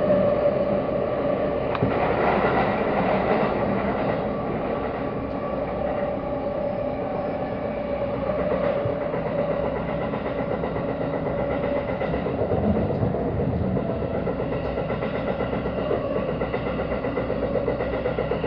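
Tokyu Meguro Line electric commuter train heard from inside the car while running: a steady rumble of wheels on rail with a constant mid-pitched hum.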